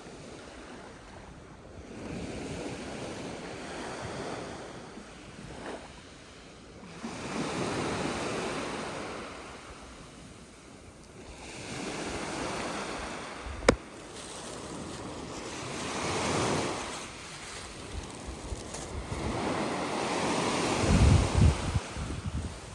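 Sea waves washing up onto a sand and small-pebble beach, swelling and falling back about every four to five seconds. A single sharp click comes about halfway through, and wind gusts buffet the microphone near the end.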